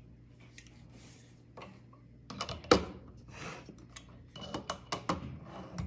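Handling sounds of a trim router and a scrap block of wood on a workbench, with the router switched off: scattered clicks and knocks, the loudest a sharp knock about two and a half seconds in, then a quick run of clicks near the end, over a faint low hum.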